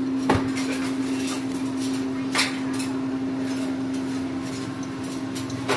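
Plastic food containers and bags being handled, with a few sharp knocks and clatters, over a steady low hum.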